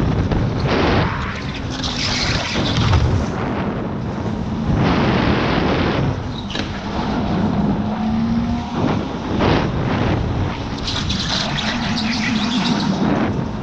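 Electric go-kart driven hard through corners: uneven rushing wind and buffeting on the onboard microphone, which swells and dips every second or two, over a low hum from the electric drive and tyre noise.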